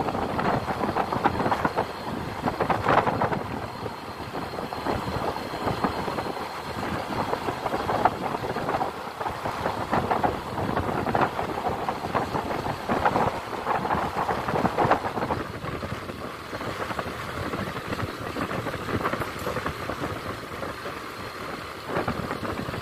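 Wind buffeting the microphone of a moving motor scooter, rising and falling in gusts, over the scooter's running and road noise.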